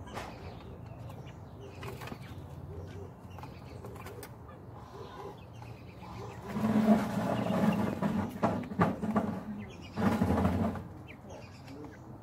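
Quail flapping and scuffling in the straw close to the microphone, in two loud noisy bursts: one of about three seconds starting some six seconds in, and a shorter one about ten seconds in. Before them there is only a faint low hum with scattered light clicks.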